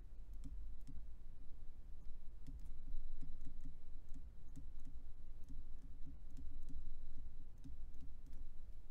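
Irregular light clicks and taps of a stylus on a drawing tablet as words are handwritten, over a steady low hum and a faint thin high whine.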